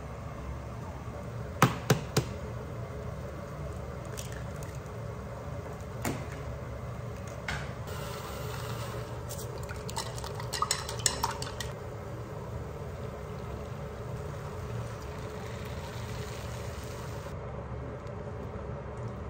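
Long cooking chopsticks beating eggs against a glass bowl: a quick run of clinks about ten seconds in. A few separate kitchenware knocks come earlier, over a steady low hum.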